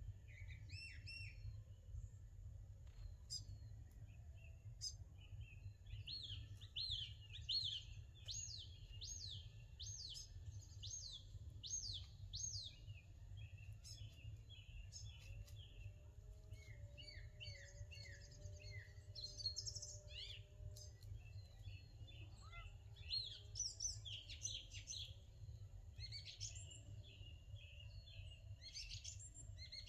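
Small birds chirping and calling faintly, with many short quick notes and a run of repeated sweeping calls in the middle, over a low steady rumble.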